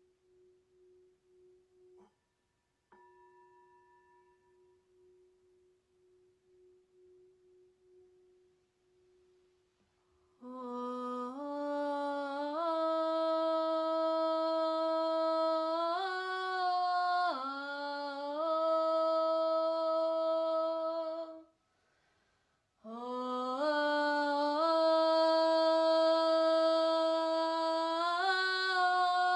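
A faint, steady ringing tone with two light strikes about two and three seconds in, then a woman's voice sings long wordless toning notes, holding each pitch and stepping between them, with a short pause for breath about two-thirds of the way through.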